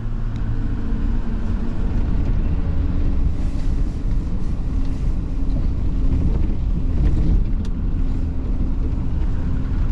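Pickup truck engine and road noise heard from inside the cab while driving: a steady low rumble.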